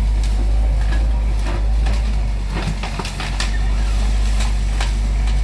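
A steady low engine rumble, with scattered sharp clicks and rattles over it.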